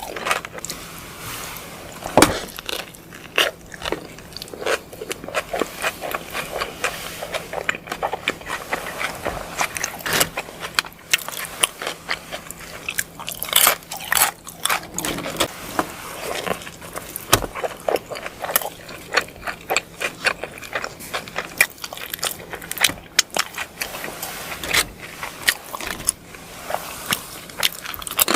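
Close-miked eating: a person biting and chewing food, with many irregular sharp, crackly clicks and mouth sounds.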